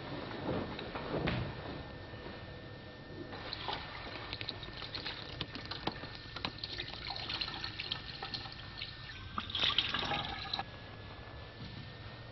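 Water running from a tap into a sink with splashing, starting a few seconds in and stopping shortly before the end; a few knocks come before it.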